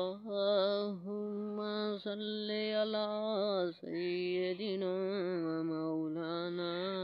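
Slow Islamic devotional chant (salawat): one voice holding long, wavering notes with no instruments, in a short pause between phrases about four seconds in.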